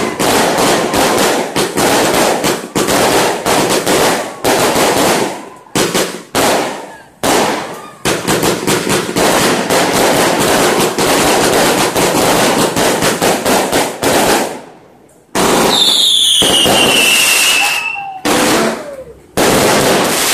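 Aerial fireworks going off in quick succession: a dense run of crackling bursts and pops with a few short gaps. About three-quarters through, a long whistle falls in pitch, followed by more bursts.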